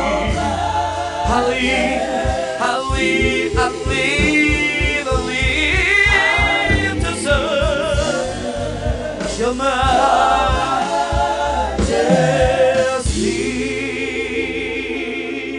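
Gospel worship singing: voices singing with vibrato over band accompaniment, with a steady low beat through the middle. The music softens near the end.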